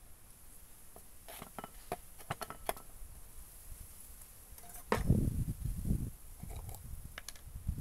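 Chef's knife chopping a small piece of root on a wooden cutting board, about seven quick cuts in a row. About five seconds in, a sharp knock followed by low thumping and rumbling, the loudest part, from things being handled on the wooden table.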